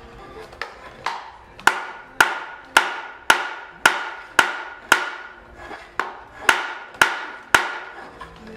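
Hammer blows at a workbench, struck steadily about twice a second, each a sharp knock with a brief ringing tone that dies away.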